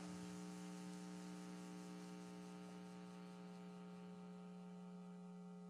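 Faint, steady electrical mains hum: one low tone with a ladder of evenly spaced higher tones above it.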